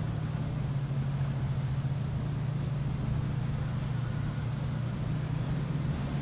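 Motor yacht's engines running as it cruises past at low speed: a steady low drone over a haze of wind and water noise.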